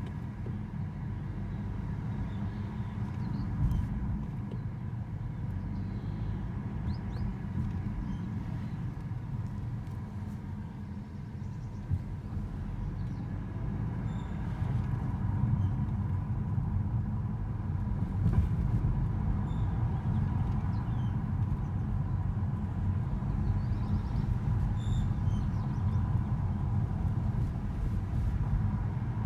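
Motor vehicle driving in third gear at about 33 km/h, a steady low rumble with a thin, steady high-pitched squeal running through it. The squeal is the fault under investigation.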